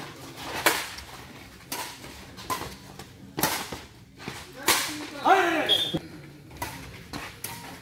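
Badminton racquets striking the shuttlecock back and forth in a rally: sharp snapping hits roughly once a second, some louder than others.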